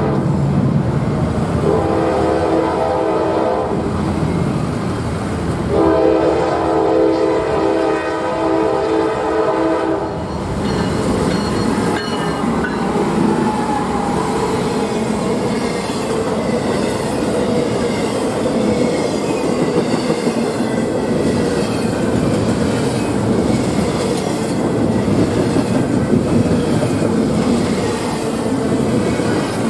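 Norfolk Southern diesel freight locomotive sounding its horn in several blasts, the last held about four seconds. It then rolls past close by, followed by double-stack container cars with a steady rumble and clatter of steel wheels on the rails.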